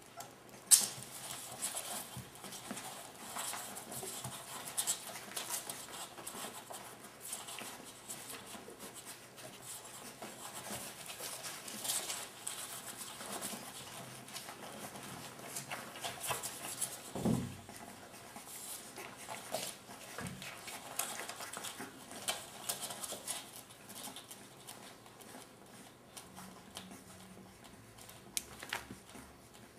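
Border collie puppies suckling from their mother: irregular small wet smacking and clicking sounds, with a sharper click about a second in and a short low noise about halfway through.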